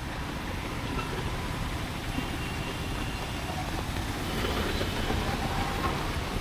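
Street traffic in the rain: vehicle engines running over a steady wash of noise, growing a little louder about four seconds in.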